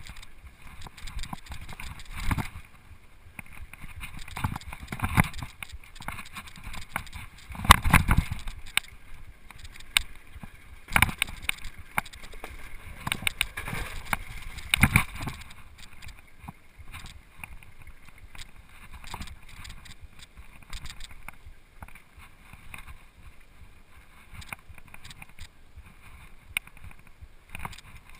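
Full-suspension mountain bike riding fast down a rough dirt trail: a steady rattle of chain and frame and tyre noise, broken by hard knocks as the bike hits bumps. The biggest knocks come about 8, 11 and 15 seconds in, around a run of wooden steps, and the ride is smoother over the last dozen seconds.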